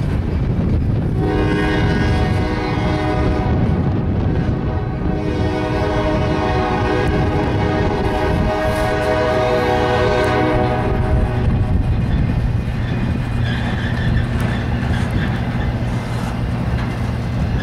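A freight train's empty intermodal well cars rumble and clatter past, while a diesel locomotive air horn sounds a long chord-like blast for about ten seconds. After the horn stops, a steady low diesel engine drone comes in under the rolling noise.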